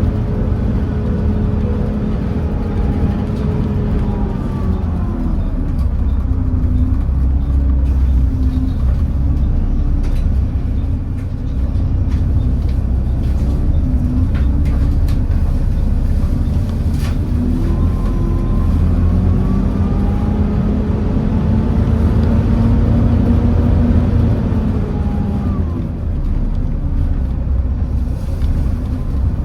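Volvo D7C diesel engine of a Volvo B7TL double-decker bus heard from on board, running under a heavy low rumble. Its pitch rises and falls a few times as the bus pulls and eases off.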